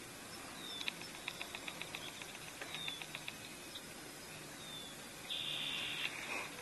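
Faint bird calls: two runs of quick high ticks with short falling whistles, then a brief high buzz near the end.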